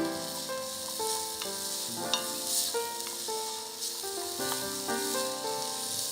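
Background music playing a melody of held notes over a steady sizzling hiss of food frying.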